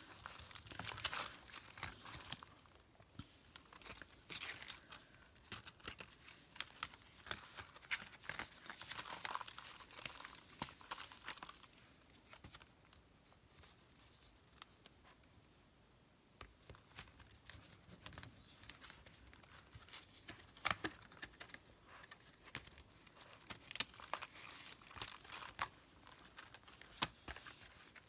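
Paper inserts and dividers being handled and fitted onto the rings of a pocket-size six-ring leather planner: faint paper rustling with scattered small clicks and taps, easing off for a few seconds about halfway through.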